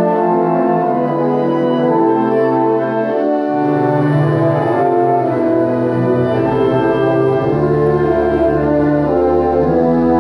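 A student concert band plays live, holding brass chords over a low tuba and double bass line that shifts to a new note every few seconds.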